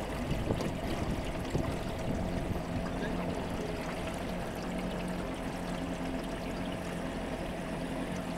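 River current rushing and splashing against the float of an Archimedes screw turbine rig, a steady watery wash with a low, steady hum underneath.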